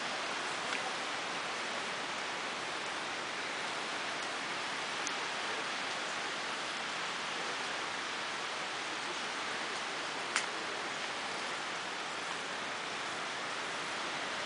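A steady, even hiss with no clear pitch, unchanging throughout, broken by one sharp click about ten seconds in.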